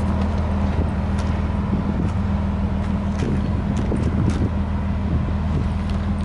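Nissan Skyline R32's engine idling steadily through an aftermarket muffler, a low even drone.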